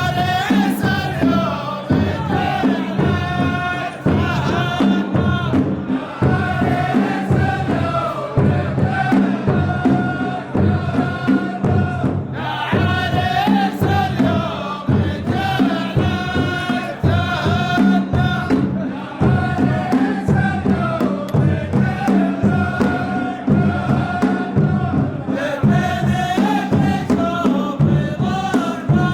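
Saudi ardah: a chorus of men chanting verses in unison over a steady beat of drums.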